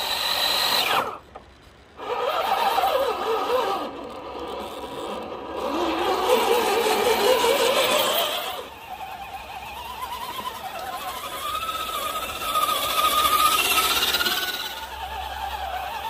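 Electric motor and gearbox of a 1/6-scale 6x6 RC crawler whining as it drives, the pitch rising and falling with the throttle. The sound drops out briefly about a second in.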